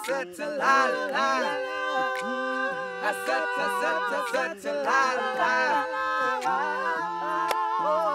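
Male a cappella group singing in close harmony with no instruments, holding long chords over a lower bass voice.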